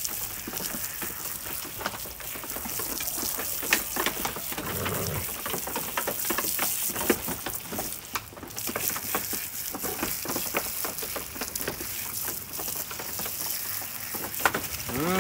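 Water spraying from a garden hose onto a goat's wet coat and the straw beneath: a steady hiss of spray with many small patters and splashes.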